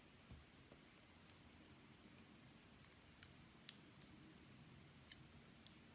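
Faint, scattered clicks of small metal parts as a pin-tumbler lock is taken apart and its pins handled, about half a dozen ticks with one sharper click a little past halfway.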